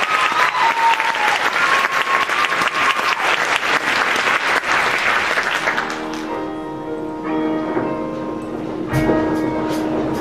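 Audience applauding, which fades about six seconds in as a live band starts the next number with sustained guitar and keyboard chords. Drum hits come in about nine seconds in.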